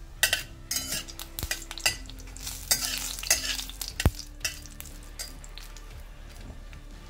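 Metal spatula scraping around a metal kadhai, stirring a tempering (tadka) of panch phoron seeds and a dried red chilli in sizzling mustard oil. The scraping strokes come one after another for about the first four seconds, then ease off to a quieter sizzle.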